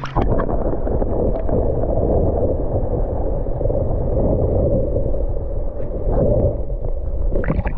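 Muffled rush and rumble of creek water heard through a camera held underwater, with no sound above the low and middle range. It starts abruptly as the camera goes under and cuts off just as abruptly near the end when it comes out.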